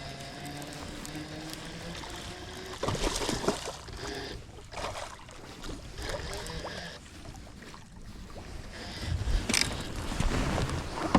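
Sounds aboard a fishing boat: a low hum that shifts in pitch and fades in the first two seconds, then irregular knocks and rustles.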